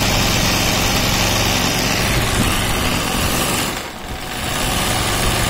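Embroidery sewing machine running fast, its needle stitching steadily through hooped fabric in freehand embroidery. The sound dips briefly about four seconds in, then resumes at the same pace.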